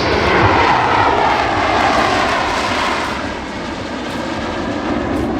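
Display aircraft passing low at an air show: a loud engine roar whose pitch falls as it goes by. It is loudest about half a second in and fades somewhat after about three seconds.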